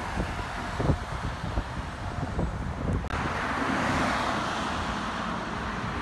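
Road traffic: a tractor-trailer pulls away with a low engine rumble and a few short knocks. About three seconds in, the sound changes abruptly to a steady hiss of passing traffic.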